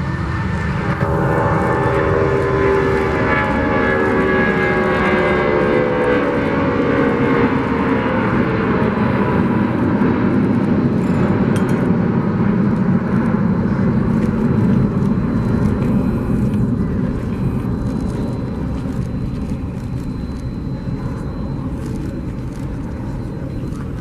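Rolls-Royce RB211 engines of a Boeing 757 at takeoff power as the jet departs. Whining tones drop in pitch as the aircraft goes by, then a broad jet roar builds, peaks midway, and slowly fades as the aircraft moves away.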